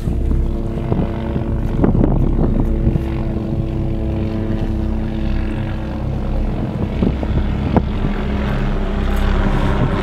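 A boat engine running steadily, with a low, even drone, wind noise and a few sharp pops about two seconds in and again near eight seconds.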